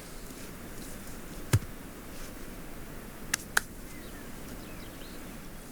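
Three sharp knocks: a heavy one with a dull low thump about a second and a half in, then two lighter, higher clicks in quick succession near the middle. Birds chirp faintly in the background.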